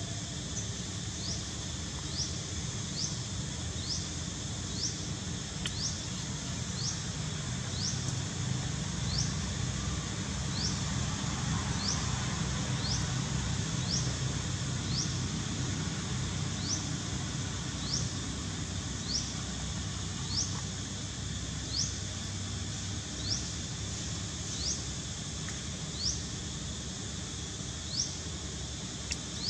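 A short, high, rising chirp from a calling animal, repeated steadily about once a second, over a steady low outdoor rumble.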